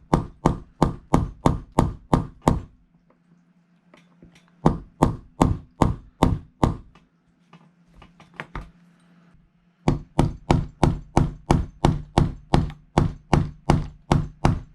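Hammer tapping a pin punch to drive a stuck pin out of an airsoft gas-blowback rifle's cast-metal hop-up casing. The strikes are sharp, about three or four a second, and come in three runs with short pauses between, the last run the longest; the pin is really stuck.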